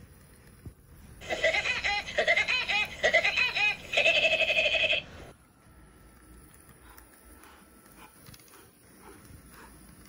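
Woody Woodpecker's laugh, played back as a sound effect: a loud, high-pitched run of quick rising-and-falling 'ha' notes lasting about four seconds, starting about a second in. Afterwards only a faint rustle of the toy car pushed over carpet.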